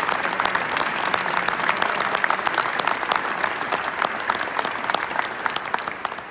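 Audience applauding, many hands clapping densely, thinning and fading out over the last second.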